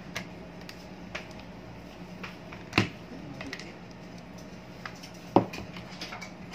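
Light clicks of a screwdriver and plastic parts being handled while an electric fan is taken apart, with two sharper knocks about three seconds and five and a half seconds in, over a steady low hum.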